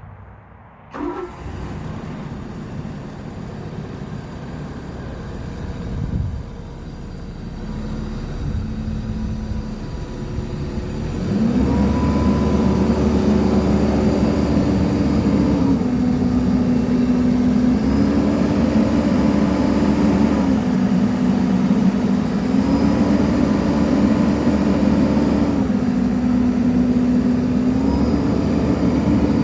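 Caterpillar 308D CR excavator's diesel engine running, picking up to a louder, higher speed about eleven seconds in. From then on a whine steps up and down in pitch every two to three seconds as the machine is worked.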